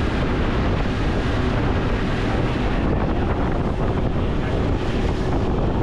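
Boat running at speed under a Mercury outboard: steady engine and rushing water from the hull and wake, heavily buffeted by wind on the microphone.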